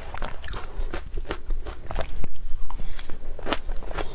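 Crunching and chewing of a mouthful of matcha-powdered frozen ice, picked up close on a clip-on microphone: an irregular run of sharp crunches, loudest a little past the middle.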